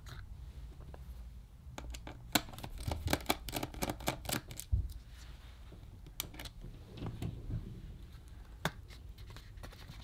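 Light, irregular clicks and ticks of a small Phillips screwdriver undoing the tiny screws that hold a laptop battery, with hands handling the screws and the plastic and metal parts.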